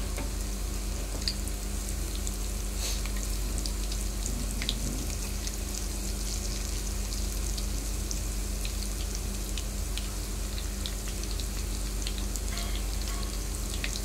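Bottle gourd pakoras deep-frying in hot oil, a steady sizzle dotted with sharp pops and crackles; the fritters are still mid-fry, not yet cooked through.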